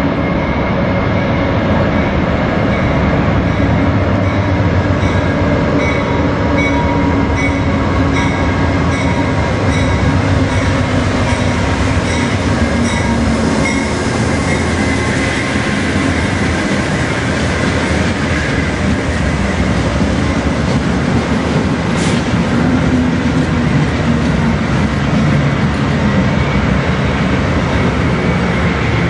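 An Amtrak passenger train led by a GE P42 Genesis diesel locomotive pulls slowly into the station, with a steady heavy rumble of the diesel engine and rolling wheels. Double-deck passenger cars follow with rail and wheel noise. A single sharp clank comes about two-thirds of the way through.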